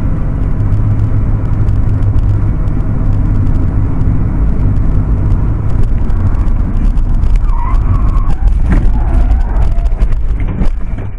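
Dashcam recording inside a car at highway speed: a loud, steady low rumble of road and wind noise. Near the end comes a brief squeal, then knocks and thuds as the car crashes and the dashcam is thrown about.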